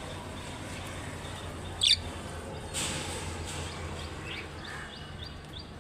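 Budgerigars chirping: one loud, sharp chirp about two seconds in, a few softer calls after it, and a quick run of short high chirps near the end.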